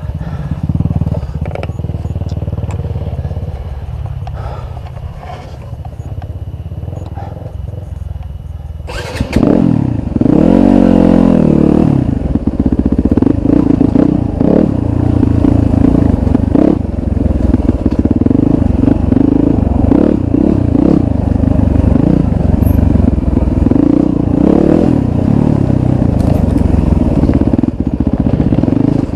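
Dirt bike engine puttering at low revs for the first several seconds, then about nine seconds in the throttle opens sharply: the engine revs up and down and then runs steadily and loudly as the bike rides along a rocky trail.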